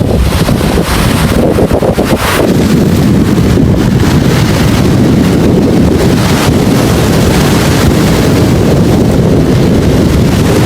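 Strong wind buffeting the microphone over big, rough sea waves: a loud, continuous rush that settles into a steady level about two seconds in.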